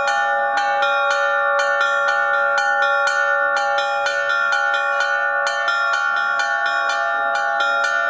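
Russian Orthodox church bell ringing on small bells worked by hand-held ropes, the clappers striking the bell rims in a quick repeating pattern of about four strikes a second while the tones ring on together. No deep bass bell sounds.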